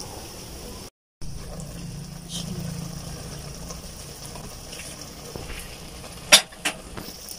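Menudo stew simmering in a wide aluminium wok: a faint steady bubbling hiss, with one sharp metallic clink near the end. The sound cuts out briefly about a second in.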